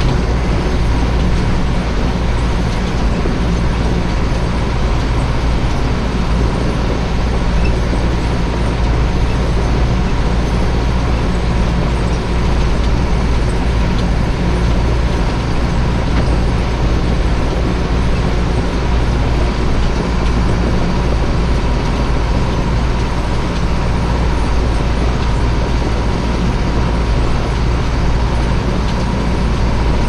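Tractor engine running steadily while pushing a front-mounted snow plough blade through snow.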